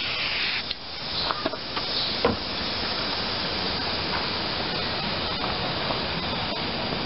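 Aerosol spray adhesive hissing from a can, cutting off under a second in. A few short knocks and rustles follow as a piece of foam is handled and pressed down, over a steady background hiss.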